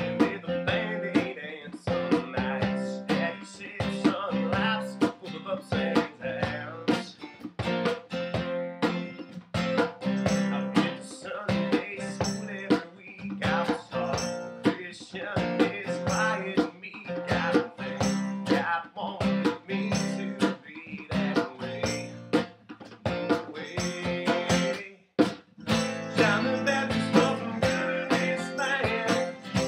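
Country song played acoustically: two acoustic guitars strummed with a djembe hand drum keeping the beat, and a man singing lead. The music breaks off for a moment near the end, then comes back in.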